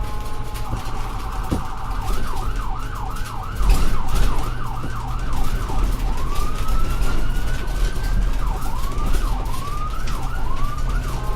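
Ambulance electronic siren changing modes: a steady multi-tone sound, then a fast yelp of about three sweeps a second, then a long slow rising wail, and then shorter rising sweeps. The vehicle's engine rumbles steadily underneath, and there is a brief louder burst of noise about four seconds in.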